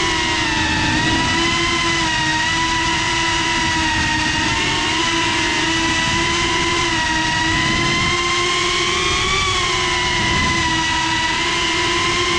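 GEPRC CineLog35 ducted FPV cinewhoop's motors and propellers whining steadily, heard up close from its onboard GoPro, the pitch wavering gently as the throttle shifts in a slow hover-and-orbit.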